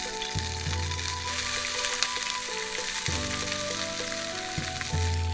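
Food frying and sizzling in a pan over a wood fire, with background music over it.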